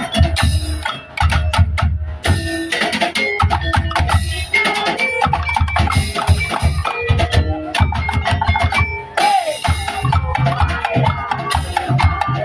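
Tongtek percussion music: wooden and bamboo slit drums (kentongan) and bass drums playing a dense, driving rhythm, with pitched melodic parts over it.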